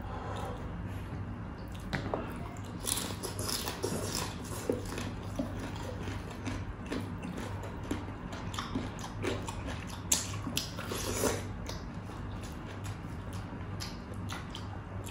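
Close-miked eating of crispy deep-fried pork knuckle and rice by hand: irregular chewing, crackling crunches and mouth clicks, with a sharp click about ten seconds in. A steady low hum runs underneath.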